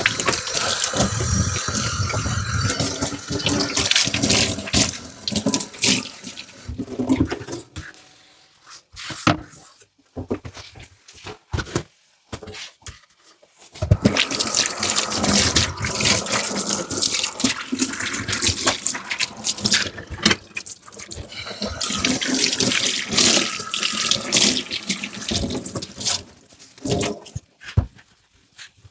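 Kitchen tap running into a sink while dishes are washed, with clinks and knocks of dishware. The water runs for about seven seconds, stops for several seconds of scattered knocks, then runs again for about twelve seconds.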